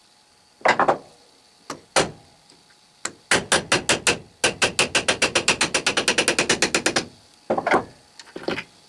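Small hammer striking a brass rod used as a drift, driving a number-two taper shaft out of a small ball bearing held in a vise. A few separate metallic blows come first. Then there is a fast, even run of light taps, roughly eight to ten a second, for about four seconds, and a few more blows near the end.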